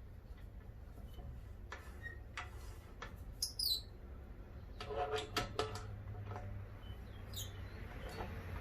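Light clicks on a Dewalt DW708 miter saw as the blade is turned by hand to catch the spindle lock, a quick cluster of them about five seconds in. A brief high chirp sounds about three and a half seconds in.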